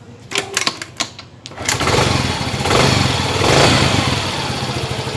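Motorcycle engine being kick-started: a few knocks from the kick-start in the first second and a half, then the engine catches, revs up briefly twice and settles into a steady idle.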